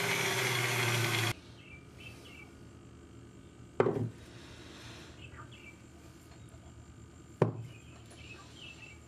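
A power tool cutting through a steel bearing ring runs loudly and cuts off abruptly about a second in. Then the split steel bearing ring knocks twice on a wooden table, two sharp knocks about three and a half seconds apart, with faint bird chirps behind.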